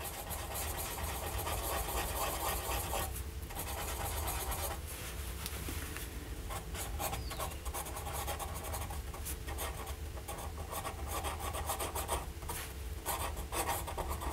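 Fine steel nib of a Faber-Castell Grip fountain pen scratching across paper as it draws loops and writes, a steady rasp broken by brief pauses between strokes. The scratch is the sign of a rough, scratchy nib.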